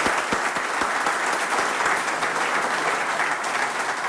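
A large seated audience applauding, a dense, steady clapping in a hall.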